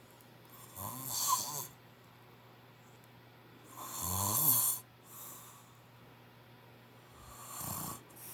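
A man snoring loudly in his sleep: three snores, each about a second long, roughly every three seconds.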